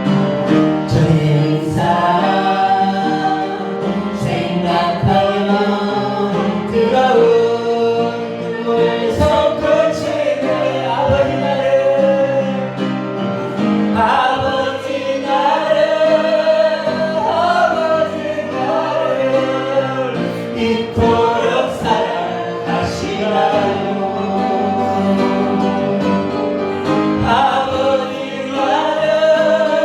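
A congregation or choir singing a Korean worship song with instrumental accompaniment.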